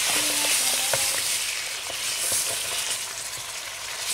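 Minced meat sizzling in hot oil in a pot, a wooden spatula stirring and breaking up the lump, with a few light scrapes and knocks against the pot.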